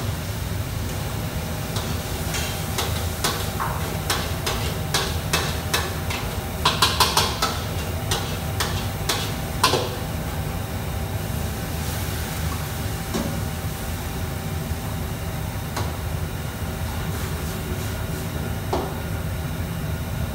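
Steady low rumble of a commercial wok station and its extractor hood, with a quick run of metal clanks, a ladle striking the wok, from about two to ten seconds in, then a few single knocks.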